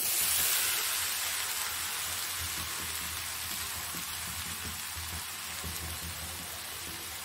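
Drained, boiled chana dal tipped into a hot kadhai, sizzling: loudest as it lands, then easing to a steady sizzle.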